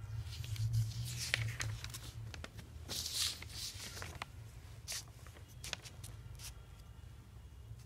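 Sheets of printed paper rustling and crinkling as pages are handled and turned, in a run of short crisp swishes and clicks, the biggest about a second in and again around three seconds in. A steady low hum runs underneath.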